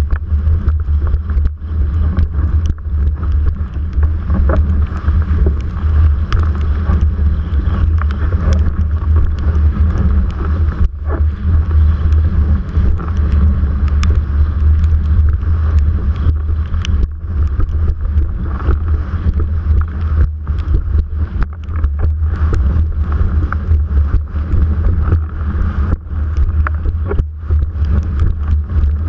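Wind buffeting a GoPro mounted on a windsurf mast, a heavy steady rumble, with water rushing past the board as it planes. Frequent sharp clicks and knocks run through it.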